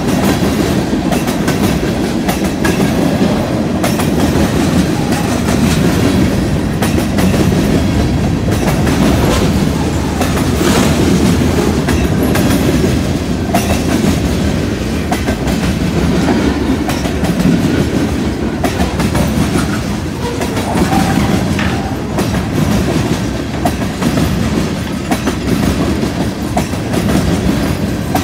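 Freight train of tank cars and covered hoppers rolling past close by: a steady rumble of steel wheels on rail, with repeated clacking as the wheels cross rail joints.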